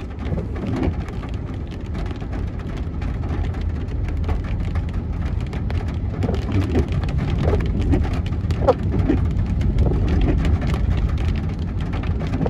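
Heavy rain falling on a moving car, a dense patter of drops over the steady low rumble of the car driving. A few brief squeaks stand out, the clearest about nine seconds in.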